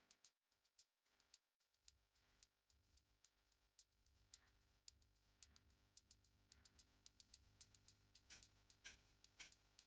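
Near silence with faint, irregular small clicks and ticks, coming more often near the end.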